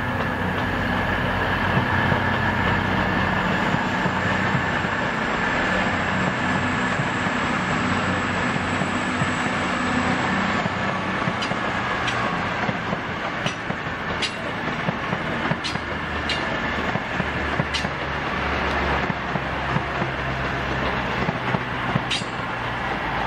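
Two coupled Class 221 Super Voyager diesel-electric multiple units passing slowly, their underfloor diesel engines running with a steady hum and a high whine that drops away about ten seconds in. After that come sharp clicks about a second apart as the wheels pass over the track.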